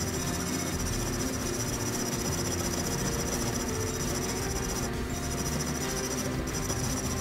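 Steady high-pitched insect chirring, with a brief break about five seconds in, over the fine rasp of a fret saw cutting a steel karambit blank held in a vise.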